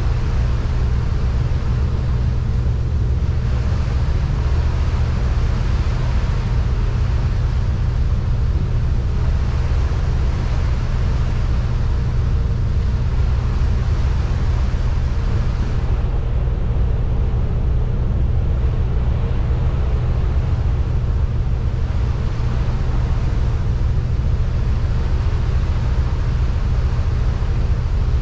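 Steady low drone of a car ferry's engines underway, with a rushing hiss over it that thins for a few seconds past the middle.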